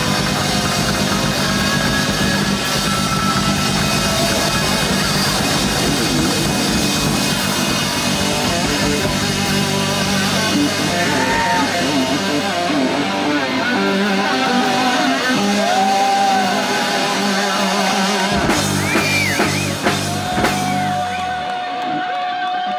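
Live rock band playing loud electric guitar, bass guitar and drums. Near the end the bass and drums stop and the electric guitar holds a single note with bends over it.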